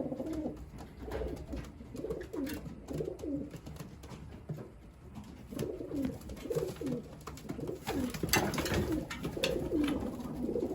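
Several racing homing pigeons cooing, their calls repeating and overlapping, with scattered light clicks among them, busiest about eight seconds in.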